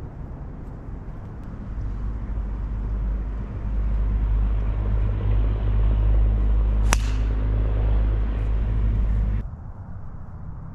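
A golf club striking a teed ball: one sharp crack about seven seconds in. Under it a steady low engine hum grows louder from about two seconds in and cuts off abruptly near the end.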